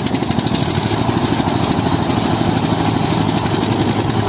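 Diesel tractor engines running hard under load, pulling against each other on a taut chain, with a rapid, even throb that holds steady.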